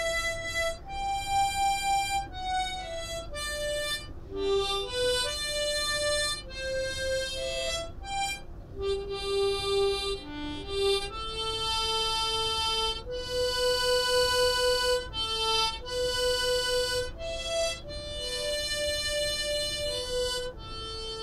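A harmonica playing a slow single-note melody, each note held from about half a second to two seconds.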